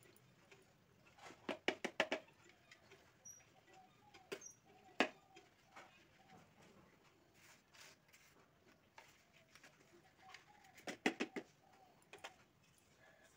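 Sieve shaken and tapped against the rim of a bowl while powdered sugar is sifted: faint, with quick runs of sharp taps about a second and a half in and again about eleven seconds in, and a single louder tap around five seconds.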